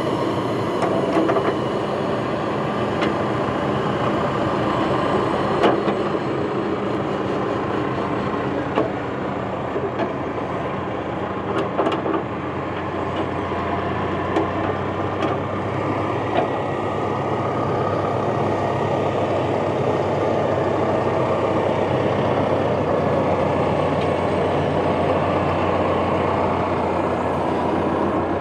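Tractor engine running steadily under load, with a few light knocks and clanks from the attachment.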